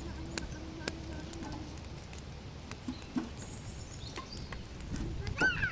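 Open wood fire crackling, with scattered sharp pops. Birds chirp faintly throughout, and near the end a louder call that wavers up and down in pitch.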